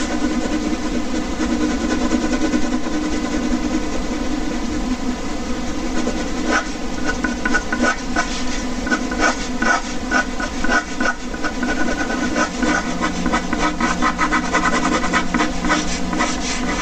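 Air conditioner running with a steady hum. From about six seconds in, a ballpoint pen makes quick scratchy strokes on paper over the hum.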